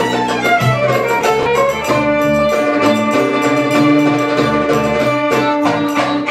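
Live Middle Eastern dance music: a violin line over plucked strings, with a quick, steady hand-drum beat.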